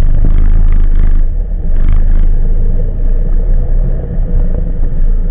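Motorcycle riding through dense city traffic: a loud, steady low rumble of the engine and passing vehicles.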